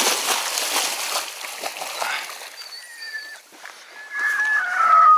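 Splashing and sloshing water as retrieving dogs leap from an inflatable boat into the marsh after a shot duck, fading after about two seconds. A few short high squeaks follow, with a louder falling squeak near the end.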